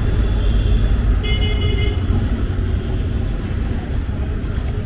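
Steady street traffic rumble, with a vehicle horn tooting briefly about a second in. Faint knife taps on a wooden chopping board as an onion is sliced.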